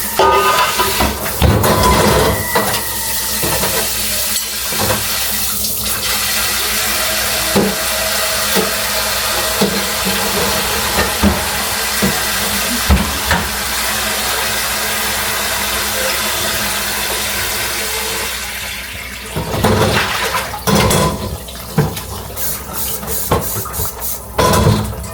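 Kitchen tap running water steadily into the sink for about eighteen seconds, then shutting off, followed by knocks and clatter of pots and dishes.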